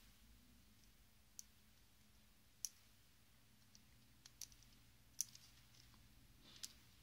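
Faint, sparse clicks of a metal tool tip against the small screen flex-cable connector on a BlackBerry's circuit board as the ribbon cable is pushed into it. About six short clicks, spaced irregularly, over near-quiet.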